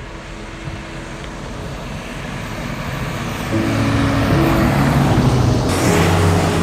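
Car approaching and passing on an asphalt road: tyre and engine noise builds steadily over several seconds and gets brighter near the end as it goes by. Background music with low notes comes in about halfway.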